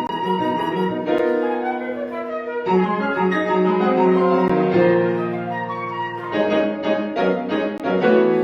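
Flute and piano playing a classical chamber piece together, the flute carrying the melody over piano chords.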